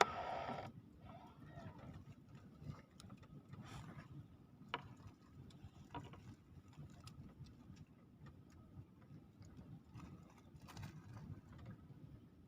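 Faint low rumbling background with scattered light clicks and taps every second or two, and a brief louder sound right at the start.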